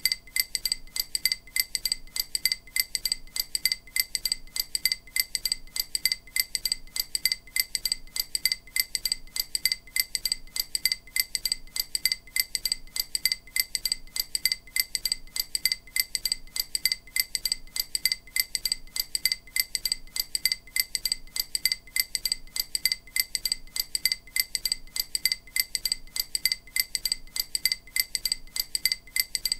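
EMDR bilateral-stimulation audio: a short, bright chime-like click repeated at an even, quick rate, meant to alternate between the left and right ears to stimulate each side of the brain in turn.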